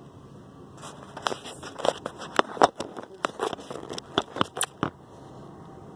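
Handling noise on a phone's microphone as it is picked up, moved and propped in place: a quick, irregular run of clicks and knocks lasting about four seconds, then stopping.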